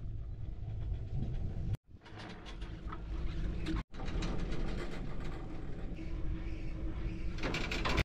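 Outdoor ambience dominated by irregular wind rumble on the microphone. It is broken by three brief dropouts to silence where the clips are cut together.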